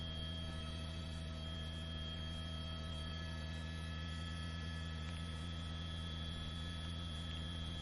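Steady electrical hum with several faint constant tones, unchanging throughout.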